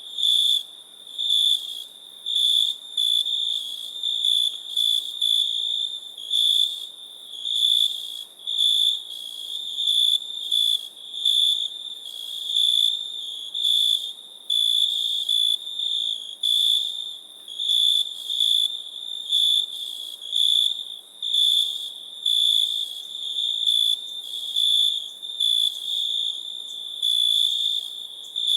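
Crickets chirping: a steady high-pitched trill that swells into louder pulses over and over, about once a second.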